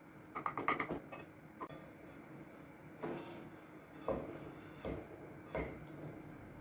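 Light clinks and knocks of cutlery and dishes, about eight separate taps spaced irregularly over several seconds, as the cake is handled for tasting.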